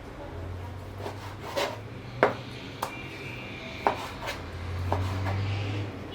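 Knife slicing raw chicken breast on a chopping board: irregular sharp knocks of the blade meeting the board, about half a dozen, over a low steady hum.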